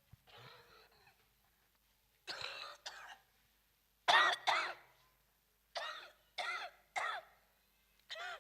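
A woman with asthma coughing into a close microphone: about eight short, harsh coughs in twos and threes, starting about two seconds in.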